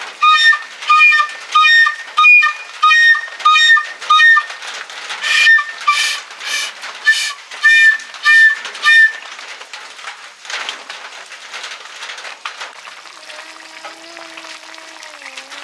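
A child blowing a toy trumpet in short toots, about a dozen over the first nine seconds, one every half second or so, a few of them breathy and without a clear pitch. After that it is quieter.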